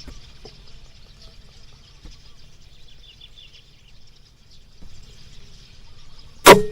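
Steady wind noise with a short run of faint bird chirps about three seconds in. Near the end comes a single sharp, loud crack of an air rifle shot.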